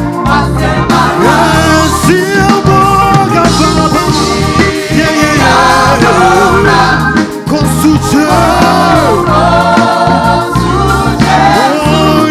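Live gospel music: a mass choir singing with a lead vocalist over a full band at a steady beat.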